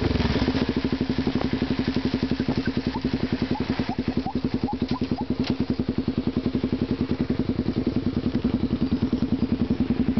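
Honda XR 250 Tornado motorcycle's single-cylinder engine idling through a Roncar aluminium aftermarket exhaust, a steady, even beat of rapid exhaust pulses. It drops back from a rev to idle right at the start.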